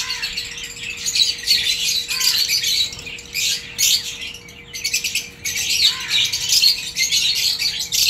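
A flock of budgerigars chattering and chirping, a dense, continuous high twittering.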